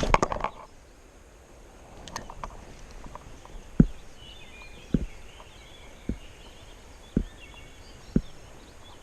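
Quiet outdoor background with a string of five soft thumps about a second apart, and faint bird chirps in the middle.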